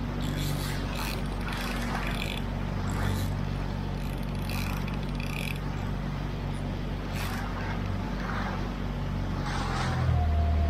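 Small boat's outboard motor running steadily under way, with water rushing and splashing along the hull. About ten seconds in the motor's note drops lower and gets louder.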